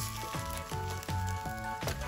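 Background music with a regular beat of short, falling bass notes, with faint wok frying underneath and a sharp clink near the end.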